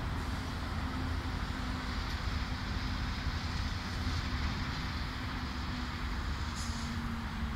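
Wind buffeting the microphone outdoors: a steady low rumble under a broad hiss, with a faint hum that comes and goes and a brief high hiss near the end.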